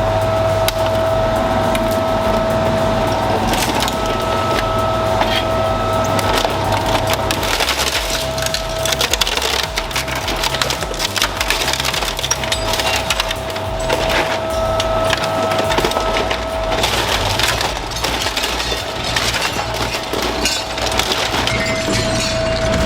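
A shredding machine running under load, with a steady motor whine over a continuous dense crackle and snapping of material being broken up. The whine drops away for a few seconds about a third of the way in, and again past the middle.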